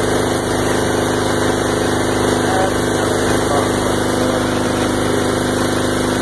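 Engine running steadily at idle, an even, unchanging hum with a fine regular pulse.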